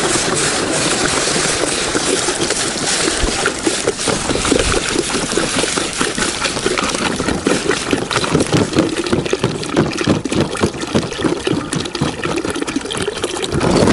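About five litres of water poured in a steady stream from a large plastic bottle into a hot, empty cast-iron kazan. The water hisses and splashes on the hot metal at first, then splashes and gurgles as the pot fills and the bottle glugs.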